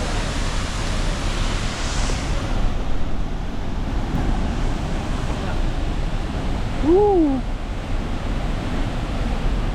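Steady rush of a waterfall and fast-flowing river water. About seven seconds in, a brief voice-like call rises and falls in pitch.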